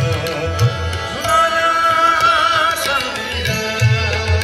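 Live Indian folk music over a large concert line-array PA (JBL Vertec): a singer holds one long wavering note in the middle, over tabla and deep drum beats that come in again near the end.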